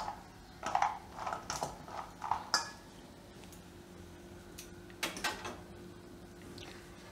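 A few light clinks and taps of metal kitchenware around a stainless steel bowl of freshly fried cashews. One tap about two and a half seconds in rings briefly, and two sharper clicks come about five seconds in, over a faint steady hum in the second half.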